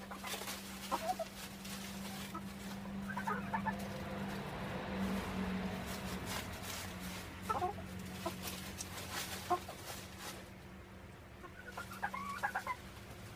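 Chickens clucking in short bursts every few seconds, over scattered light clicks and rustles of the birds scratching in the compost pile.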